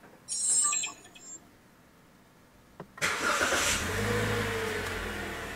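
Toyota Rush's 1.5-litre four-cylinder engine cranking and catching about three seconds in, flaring up briefly, then settling into a steady idle. A short high-pitched sound comes about half a second in.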